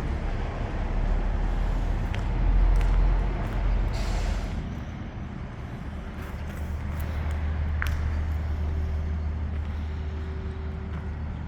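Road traffic on a busy street: a heavy vehicle's low rumble swells and fades between about two and four seconds in, with a short hiss near four seconds, then a steady low engine hum.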